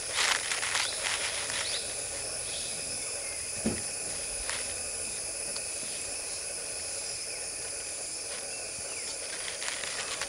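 Steady chorus of insects trilling at several high pitches. A few crackling rustles come in the first second or two, and a single dull thump comes about a third of the way in.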